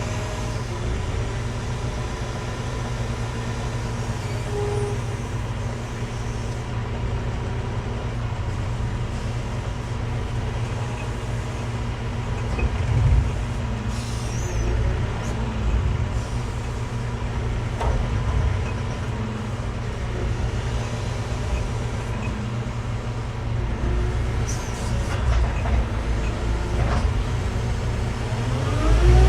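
Engine of a heavy site machine running steadily with a deep, even hum.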